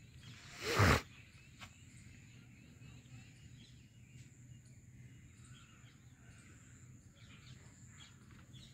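Rural outdoor ambience: faint birds chirping and a steady high insect buzz over a low steady hum, with one short loud breathy burst just before a second in.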